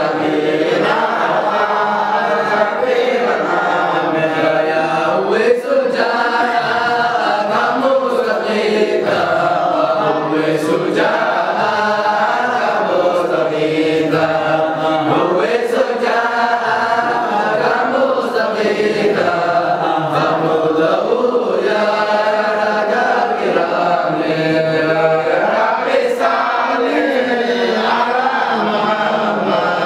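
A group of young men chanting a dhikr together without instruments. One voice leads on a microphone and the others join in a repeating melodic phrase.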